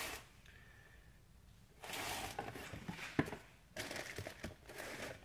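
Cardboard box and plastic bag rustling and crinkling as a new wheel hub bearing in its plastic wrapping is handled in and lifted out of its box. A brief rustle at the start, then a pause, then crinkling from about two seconds in, with one sharp tap about three seconds in.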